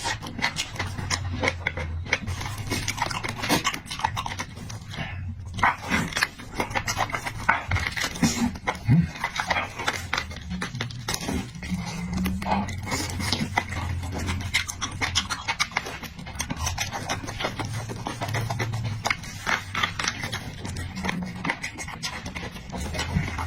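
Close-miked chewing and mouth smacking of a person eating: a dense, irregular run of wet clicks with low breathing and murmuring underneath.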